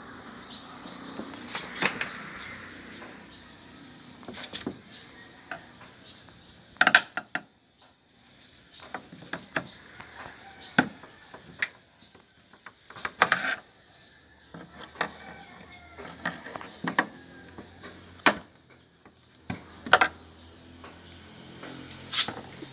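Scattered sharp clicks and knocks, a dozen or so at irregular intervals, from hands working a pickup's plastic front grille loose from its retaining clips.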